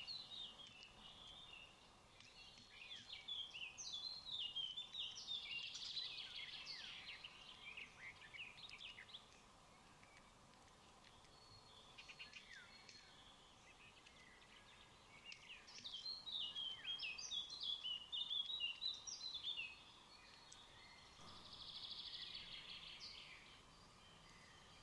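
Birds chirping and calling outdoors in two long, busy stretches of short high notes, then a shorter, noisier call near the end.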